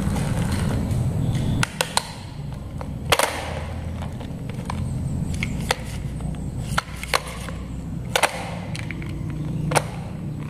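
A plastic toy stunt car being handled on a tiled floor: a low rumble that drops away about a second and a half in, then scattered sharp clicks and knocks of plastic and rubber tyres on tile as it is turned over and set down, the loudest about three seconds in.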